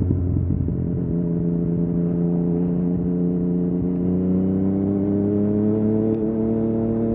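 Yamaha MT-09's inline three-cylinder engine through an Akrapovic exhaust, pulling under steady throttle, its note climbing slowly and evenly for several seconds.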